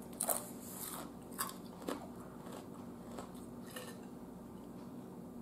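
Close-up chewing of a ridged potato chip, with several sharp crisp crunches in the first two seconds, then fading to quiet chewing.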